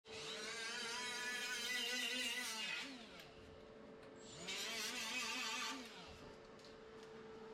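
Grinder grinding down tack welds on a steel radiator support, in two bursts of whine that wavers with the load; the first burst winds down in pitch as it ends.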